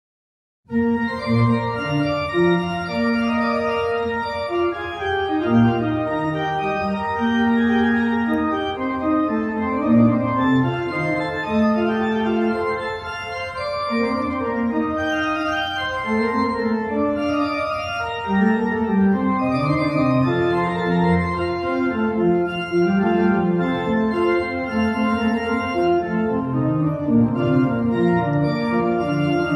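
Church organ playing a slow piece of sustained chords with moving inner and bass lines, starting abruptly about a second in.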